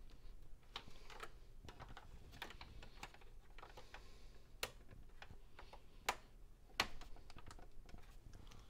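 Scattered light clicks and taps of a plastic ruler pressing a coin-cell CMOS battery down into its holder on a computer motherboard, with a few sharper clicks in the second half.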